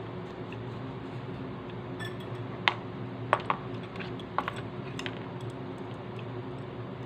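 Metal chopsticks clicking against each other and tapping a food container: about half a dozen sharp light clicks bunched together a few seconds in, over a steady low hum.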